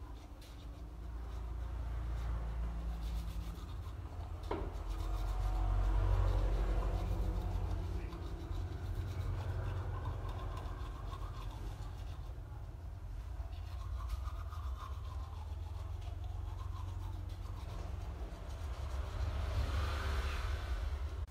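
Soft-bristled bamboo-charcoal manual toothbrush scrubbing back and forth against the teeth, continuous and uneven, over a steady low rumble. A single sharp click comes about four and a half seconds in.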